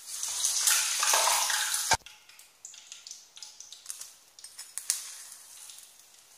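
Hot fried urad dal vadas sizzling with a loud hiss that cuts off abruptly about two seconds in. After that come soft clinks of a steel perforated spoon and light splashes as more vadas are lowered into a bowl of water, with one sharper clink near the five-second mark.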